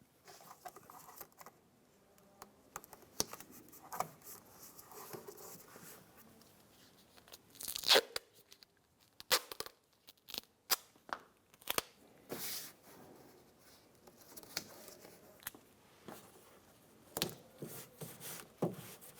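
Duct tape being torn off the roll in short strips, a sharp rip every second or few, and pressed onto a plastic door water shield.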